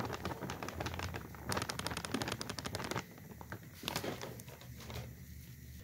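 Flour being sifted through a mesh sieve into a glass bowl: a rapid run of light ticks as the sieve is shaken, which stops about three seconds in, followed by a few faint clicks.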